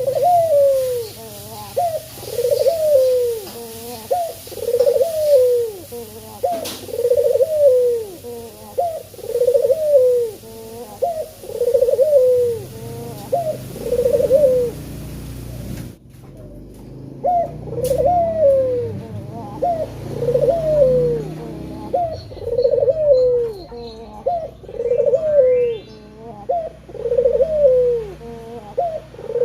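Male ringneck dove (puter) cooing over and over in a steady rhythm, about one coo phrase a second, with a brief pause about halfway through.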